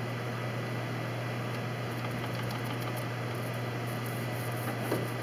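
Steady low hum with hiss. From about two seconds in, faint scratchy strokes of a paintbrush on the boat's wooden interior, with one small knock near the end.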